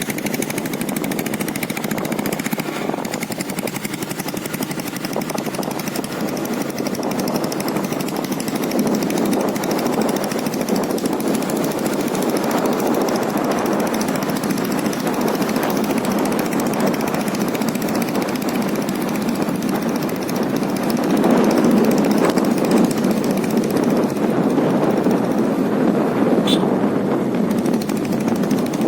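Royal Enfield Taurus single-cylinder diesel engine running with a rapid, hammering knock. It gets louder about a third of the way in and again near the end.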